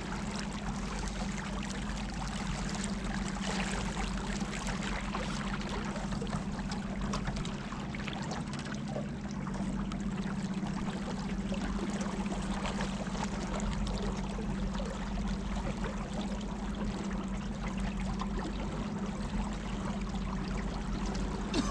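Motorboat under way: a steady engine drone with water rushing past the hull.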